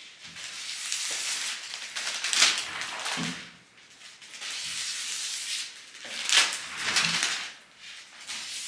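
Scissors cutting through sheets of cellophane, with the cellophane crinkling as it is handled: a run of long hissing cuts, loudest about two seconds in and again around six and seven seconds in.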